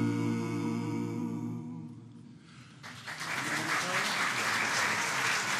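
Unaccompanied men's vocal quartet holding the final chord of a song, fading out about two seconds in. After a short pause the audience breaks into applause about three seconds in.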